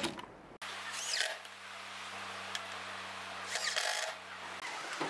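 Cordless drill-driver motor running at a steady speed as it drives a screw through a caster wheel's metal mounting plate into wood, stopping about four and a half seconds in.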